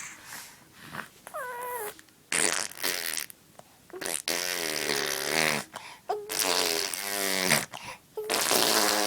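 A baby blowing raspberries, buzzing her lips while making a sound so that it comes out like a fart, in three long bouts of a second or more each. A short high baby squeal comes before them, about one and a half seconds in.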